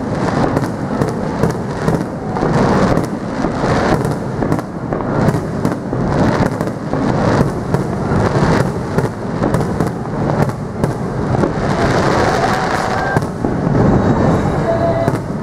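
Aerial firework shells bursting overhead in close succession, a near-continuous run of booms with crackling between them.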